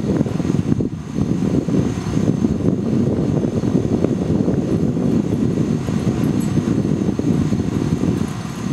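Steady low rumble of noise with no clear pitch, flickering quickly and heaviest in the bass.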